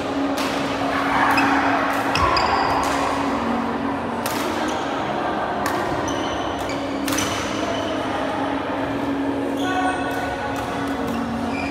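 Badminton rally: sharp racket strikes on a shuttlecock, a few seconds apart, and short squeaks of shoes on the wooden court floor, echoing in a large hall.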